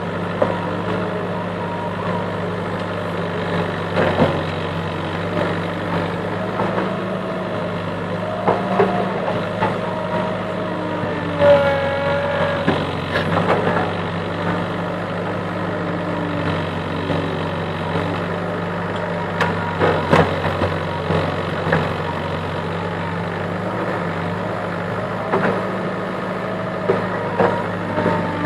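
Diesel engine of a CASE backhoe loader running steadily under digging load, with scattered knocks and scrapes as the bucket works through earth and stones, and a few brief whines from the hydraulics.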